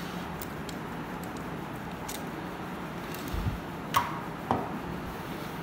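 Hands handling an action-camera screen protector and its packaging: a few light clicks and taps, a soft thump about three and a half seconds in, and a sharper click about four seconds in, over a steady background hiss.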